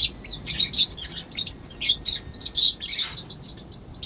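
Pet birds chirping: short, high calls coming several a second, at an uneven pace.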